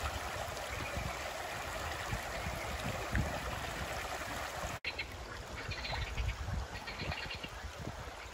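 Shallow stream babbling over stones. After a cut it runs on more quietly, with short repeated bird calls.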